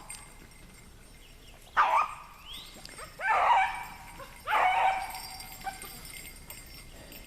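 Rabbit hound baying on a rabbit's scent trail: three drawn-out calls, each falling in pitch, about a second and a half apart.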